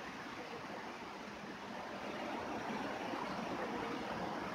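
Steady rainfall: a dense, even hiss of raindrops, a little louder from about two seconds in.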